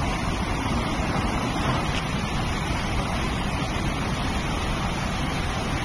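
Flood torrent rushing steadily over boulders, a loud even rush of water with a heavy low rumble.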